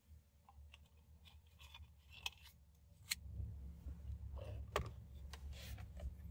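Faint low rumble of a moving car heard inside the cabin, growing louder about halfway through, with scattered irregular light clicks and rustles.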